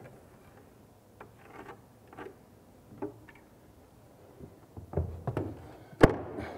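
Handling knocks and taps from a spirit level being moved against a wall and set down, scattered and light at first and louder after about five seconds, the loudest a single sharp knock about six seconds in.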